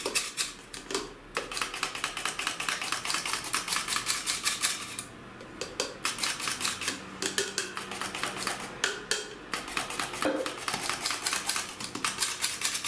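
Hand-held metal cup flour sifter being worked over a bowl, its handle mechanism making a rapid, even clicking rasp as flour passes through the mesh. The clicking stops for about a second around five seconds in, then resumes.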